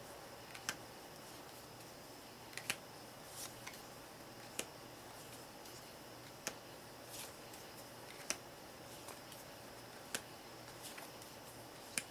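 Jumbo playing cards being handled one at a time, each flipped or laid down with a sharp, short snap, about one every two seconds.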